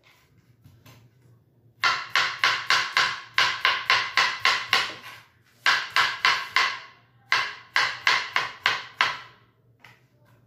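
Kitchen knife chopping a cucumber on a plastic cutting board: quick sharp knocks about five a second, in three runs with short pauses between them.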